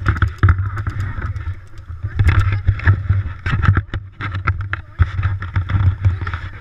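Heavy rumble of wind and movement on a body-worn GoPro microphone, with a scatter of irregular sharp clicks and knocks.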